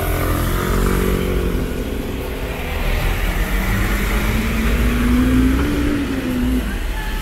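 City bus engine accelerating close by, its note rising steadily for a few seconds from about three seconds in, over a steady low rumble of traffic on the wet road.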